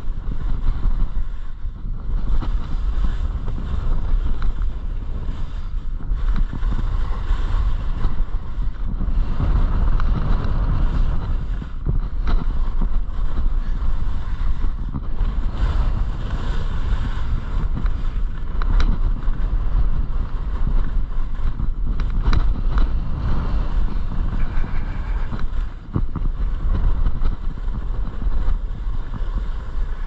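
Wind buffeting the microphone while skiing downhill, a loud steady rush that swells and eases.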